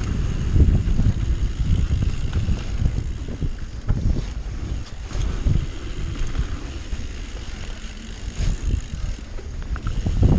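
Wind buffeting the microphone of a camera on a mountain bike descending a dirt trail, over a steady low rumble with irregular knocks and rattles from the bike bumping over the ground.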